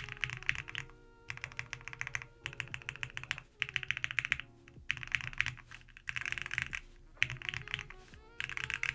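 Fast typing on a QK65 mechanical keyboard with Gateron Yellow linear switches on a POM plate: quick runs of key clicks in bursts of about a second, with short pauses between them. Soft background music plays underneath.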